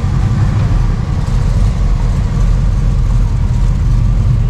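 Classic American cars' engines running at low speed close by, a steady low rumble as they pull through the square.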